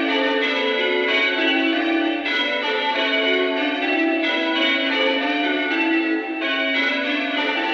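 Village church peal of six bells: change ringing, the bells struck one after another in a steady rolling sequence.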